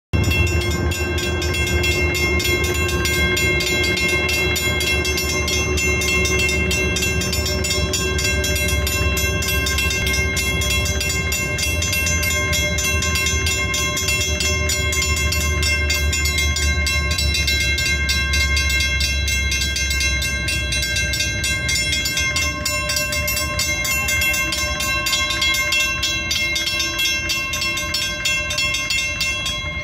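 Railroad crossing warning bells ringing rapidly and without a break while the crossing is activated with no train passing, timing out; the ringing cuts off at the very end as the gates go back up. A low steady rumble underneath fades out about two-thirds of the way through.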